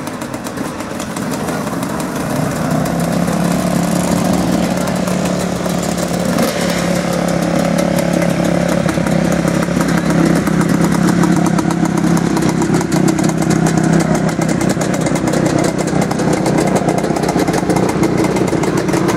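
Off-road motorcycle engine running steadily at idle, growing louder about two seconds in.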